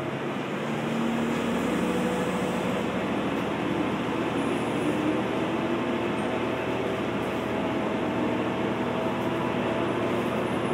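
Kanto Railway KiHa 2200-series diesel railcar heard from inside the passenger cabin, running under power. The engine note climbs slowly as the train accelerates, and the overall level swells over the first couple of seconds, then holds steady.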